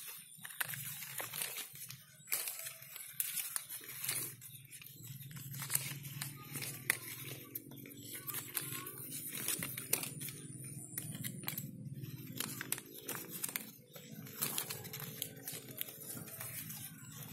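Leaves rustling and crackling as a hand moves through the branches of a water apple tree, with small snaps as flower buds are picked off. A low steady hum runs underneath.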